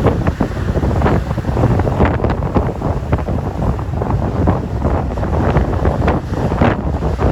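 Atlantic surf breaking and washing on a rocky shore, a steady rumble with many short splashes, heavily buffeted by wind on the microphone.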